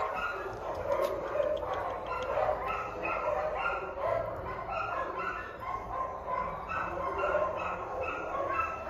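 Short, high-pitched animal yelps, several a second and overlapping, as from several animals calling at once.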